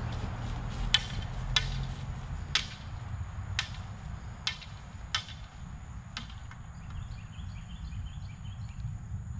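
Sharp wooden taps, about seven over five seconds at an uneven pace, of a stick striking a rolling wooden hoop to drive it along, over a low wind rumble on the microphone.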